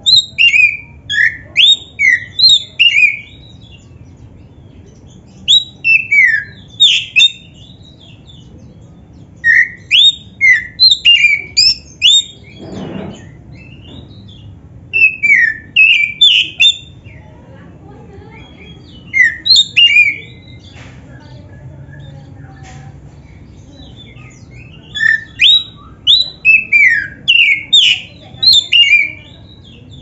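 Oriental magpie-robin (black-breasted kacer) singing: six bursts of rapid, loud whistled notes that slide up and down, with pauses of a few seconds between phrases.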